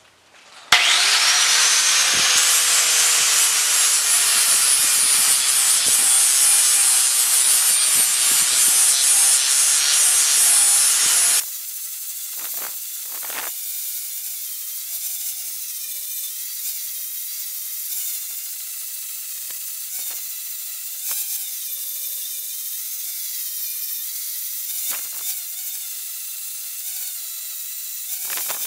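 Angle grinder with a flap disc grinding the steel head of a club hammer, shaping it into a rounding hammer. The grinder spins up with a rising whine about a second in and grinds loudly; a little before halfway the sound drops suddenly to a quieter, steadier grind.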